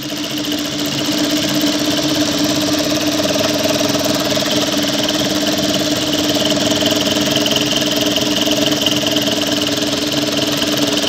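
Industrial lockstitch sewing machine running steadily at speed, with a fast even run of needle strokes, sewing net fabric through a gathering foot that gathers it as it stitches. It picks up speed in the first second or so.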